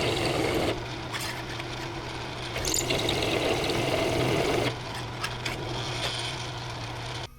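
Chamfer tool scraping around the edges of holes in a sheet-metal battery tray, in two spells, the second a couple of seconds long. A steady hum runs underneath and stops just before the end.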